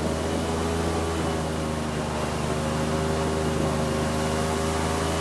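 Airboat engine and propeller running steadily, an even hum with no change in speed.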